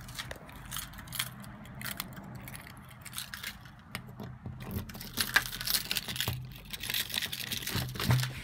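Scattered taps, then from about five seconds in a bunch of keys jangling and clicking as a key is pushed into a front-door knob lock and turned.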